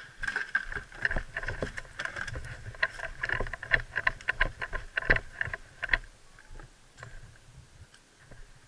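A sharp knock, then the quick, uneven crunching footfalls and gear rattle of someone running on a dirt and gravel path. The footfalls ease off about six seconds in.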